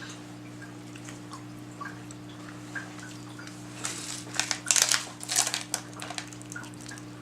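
A person crunching hard crunchy candy in the mouth, a run of short sharp crackles about four to six seconds in. A steady low hum sits underneath.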